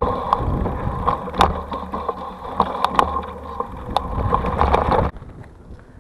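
Knobby mountain bike tyre rolling along narrow wooden planks and a log ride, a steady rumble with irregular sharp clicks and knocks, picked up close to the front wheel. It starts suddenly and cuts off about five seconds in.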